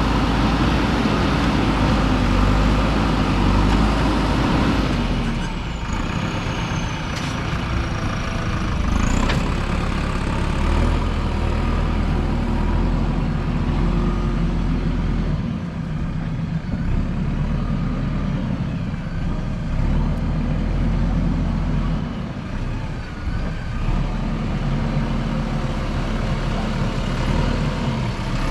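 JCB 3DX backhoe loader's diesel engine running under working load while digging, harsher and louder for the first five seconds and then easing. A faint high squeal dips and rises a few seconds later.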